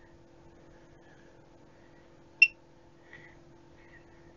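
A single short electronic key beep from a handheld process calibrator's keypad about two and a half seconds in, as its output voltage is stepped up. A faint steady hum runs underneath.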